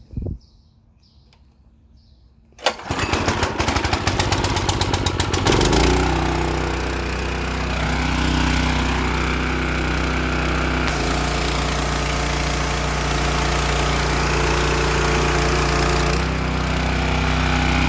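Small gasoline engine on a Power Stroke 3100 psi pressure washer, pull-started: a brief thump near the start, then about three seconds in the engine catches, fires rapidly and settles within a few seconds into a steady run. The engine had not run in three years and is running well on fresh oil and gas.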